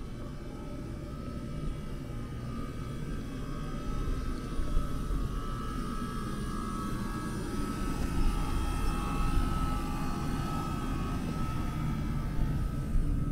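An airplane passing overhead: a low rumble with a high whine that grows louder through the middle and eases toward the end.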